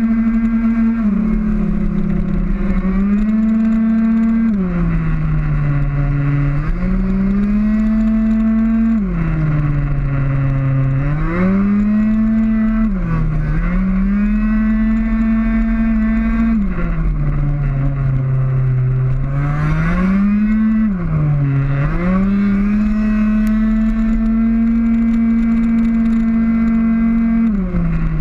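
Two-stroke racing scooter engine at full throttle, heard from on board: its high, steady pitch falls sharply about six times as the throttle is shut for corners, then climbs back under acceleration. Wind rumble runs underneath.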